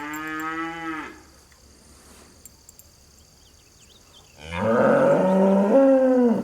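A dairy cow mooing twice: one call ends about a second in, and a second, louder and longer moo starts past four seconds, rising in pitch at its start and holding steady until it stops.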